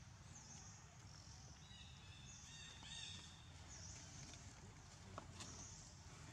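Faint woodland ambience: insects buzzing in high pulses that recur every second or so, a bird chirping a few times about two to three seconds in, and a low steady rumble underneath.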